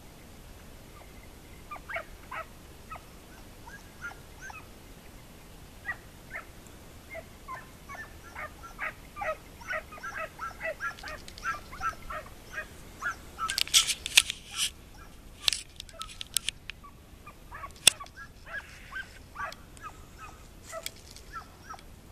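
Hunting hounds yelping and giving tongue in chorus. A few calls at first, then a dense run of overlapping yelps through the middle that thins out toward the end. A few loud, sharp cracks cut in past the middle.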